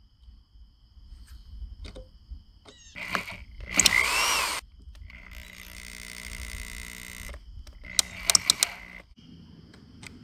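Power drill driving long screws into a wooden mailbox post. About four seconds in there is a loud burst of the motor, its pitch rising and falling, then a steadier run of a couple of seconds, and a few sharp clicks near the end.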